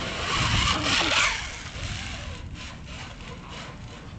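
A loud rushing noise for the first second or so, then rhythmic rasping strokes, a few a second, from a rope toy rubbing and swinging on its overhead line with a dog hanging from it.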